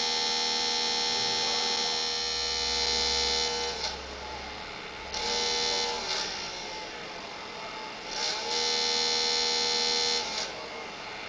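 Small DC motor with an incremental encoder running with a steady high whine. The whine drops away and comes back twice, as the motor slows and spins back up, and it falls away again near the end.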